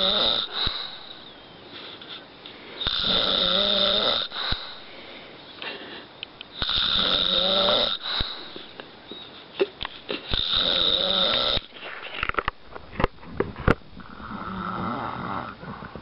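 A man snoring in his sleep, with regular snores about every four seconds, each lasting a second or so. A few short sharp clicks fall between snores past the middle.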